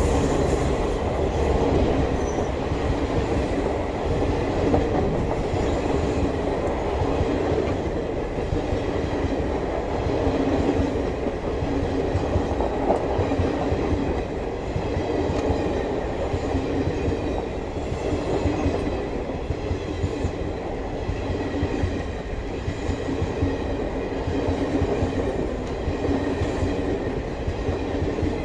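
Coaches of the Maharajas' Express rolling steadily past, wheels clattering over the rails.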